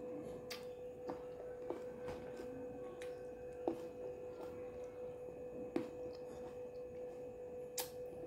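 Quiet mouth and eating sounds from someone eating peeled grapes: scattered short wet clicks and lip smacks, two of them louder, about halfway through. A faint steady hum-like tone runs underneath.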